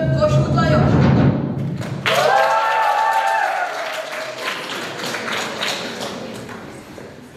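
Music: a low drum-like rumble, then about two seconds in a sustained chord of several notes that slowly fades away.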